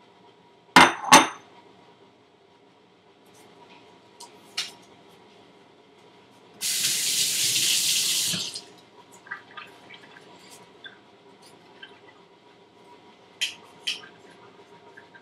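Two loud knocks about a second in, then a water tap running for about two seconds, starting and stopping sharply. Light clinks and taps of kitchen utensils follow near the end.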